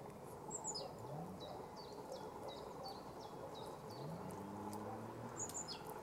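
Great tit calling: a run of about eight short, high notes, each slurring down, at roughly three a second. A higher note sweeps steeply down just before the run and again near the end. A low engine hum lies underneath and rises in pitch twice.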